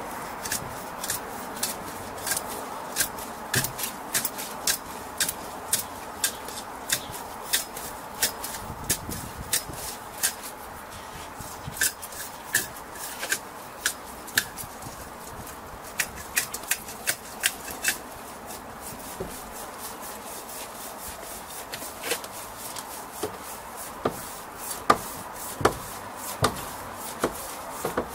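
A copper ground rod being water-jetted into clay soil: a steady hiss with frequent irregular sharp clicks and knocks as the hose-fed pipe is worked down into the ground.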